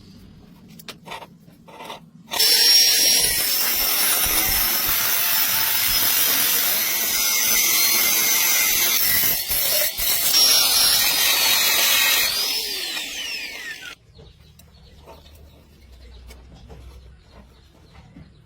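A power tool starts suddenly a couple of seconds in and runs loud and steady for about eleven seconds, then its pitch falls as it winds down and stops.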